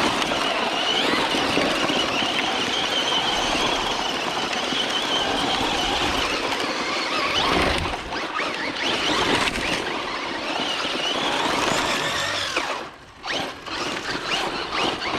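Electric motors of Traxxas Slash 4x4 RC trucks whining as the trucks are driven hard, the pitch rising and falling with the throttle. The whine sits over a steady rushing noise and drops away briefly near the end.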